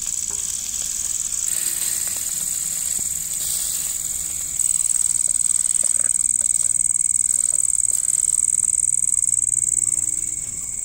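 Crickets trilling steadily in a high, fast-pulsing drone, which grows louder about four and a half seconds in.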